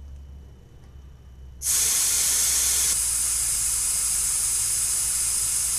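Air hissing steadily out of a tire's valve stem as the valve core is held open, starting about a second and a half in and stopping sharply at the end. The tire is being deflated to trigger the tire pressure monitor sensor relearn.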